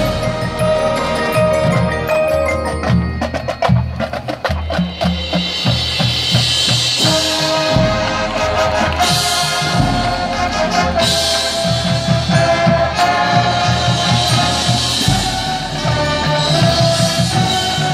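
Marching band playing, with the front ensemble's marimbas and other mallet percussion to the fore. A run of rapid mallet strikes comes a few seconds in, then the winds join with held chords over the drums.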